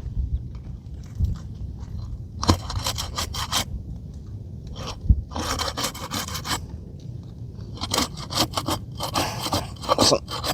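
A pry bar scraping and crunching under asphalt roof shingles to break their tar seal strip. It comes in three spells of quick scraping strokes: about two and a half seconds in, around five and a half seconds, and a longer spell from about eight seconds on.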